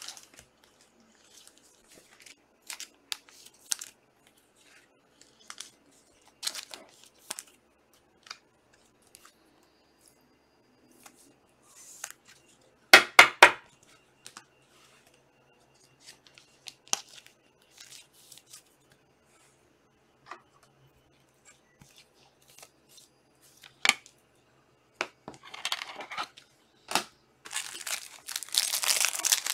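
Panini Chronicles soccer card pack wrappers tearing and crinkling as packs are opened, with scattered light clicks and taps of cards being handled. There is a sharp knock about 13 seconds in and a longer stretch of crinkling near the end.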